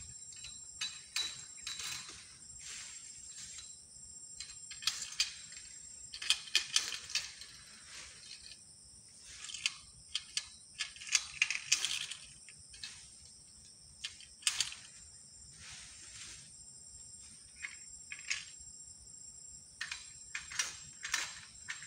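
Insects shrilling steadily at a high pitch, with scattered short chirps and clicks coming in irregular clusters.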